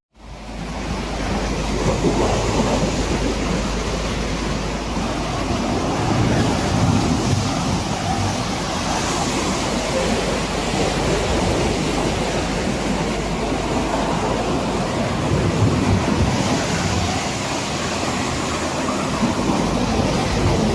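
Rough sea at sea level: a steady rush of wind and breaking waves, with gusts buffeting the microphone.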